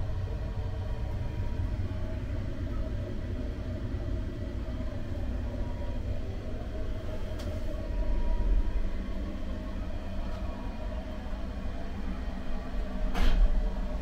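JR Central 313 series electric train running, heard from inside the car: a steady low rumble of wheels on rail with faint steady tones above it. The rumble swells a little past the middle, and a short, louder burst of noise comes near the end.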